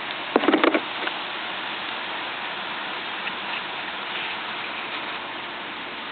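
Handling noise of a paper-and-tape model rifle: a short crinkle of clicks about half a second in, then a steady hiss of recording noise.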